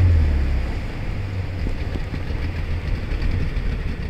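Small wooden boat's engine running steadily under way, its note dipping slightly about a second in, over a steady hiss of water and wind.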